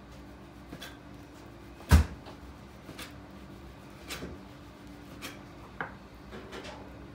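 Sushi knife cutting raw spear squid on a wooden cutting board: light, irregular knocks as the blade meets the board, with one much louder knock about two seconds in. A faint steady hum runs underneath.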